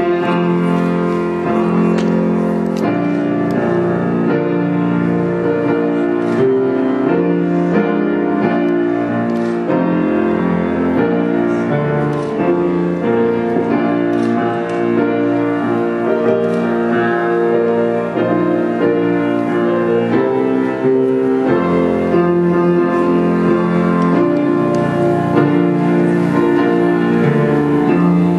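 Instrumental wedding processional music led by piano, slow, with held chords that change every second or so.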